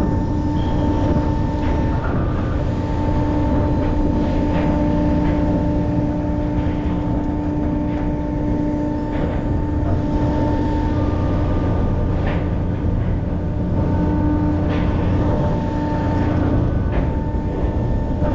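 Steady drone of a fishing vessel's engines and machinery with a constant hum, broken by scattered light clicks and knocks.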